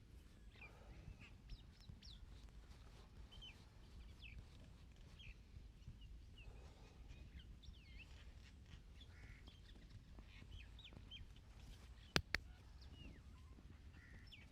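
Faint chirping of many small birds. About twelve seconds in come two sharp clicks in quick succession, the loudest sounds here.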